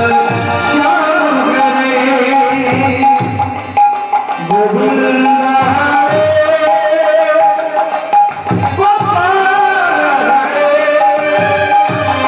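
Live Bengali kirtan played through a PA system: a singer's gliding melody over a held electronic keyboard tone, with a khol hand drum beating out a steady rhythm.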